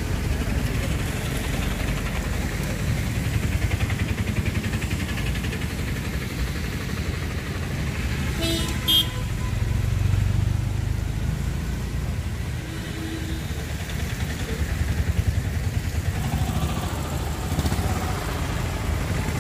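Road traffic of motorcycles and auto-rickshaws running past in a steady rumble, with a brief vehicle horn toot about halfway through.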